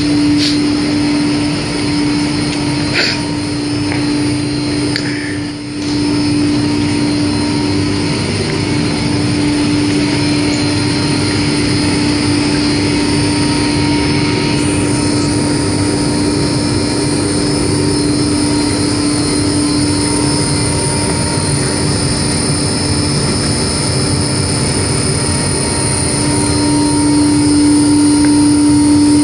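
Locally built laundry machine running with a steady mechanical hum and a strong constant low tone.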